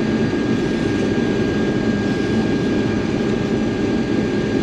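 Combine harvester running steadily: a dense, even drone of engine and threshing machinery with a faint steady high whine over it.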